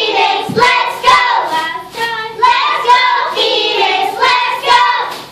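A group of young girls chanting a cheer together in unison, in short loud phrases.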